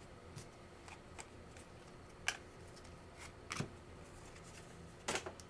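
Trading cards being handled: a few faint, scattered clicks and light rustles of card stock and plastic.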